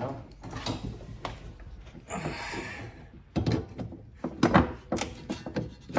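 Coilover being worked into place in the car's suspension: irregular metal clunks and knocks as it is pushed up through to the top mount and seated in the lower mount, with a short scrape about two seconds in and louder knocks in the second half.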